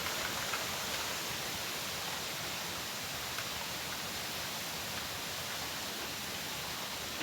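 Steady hiss of trickling water and wind, even and unbroken, with a few faint ticks.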